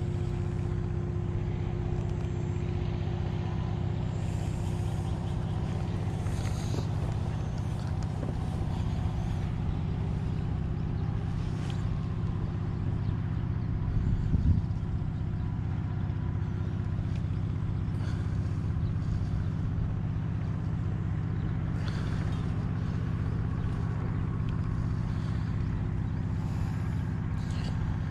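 A steady low motor hum with a few fixed pitches, unchanging throughout, and one brief knock about halfway through.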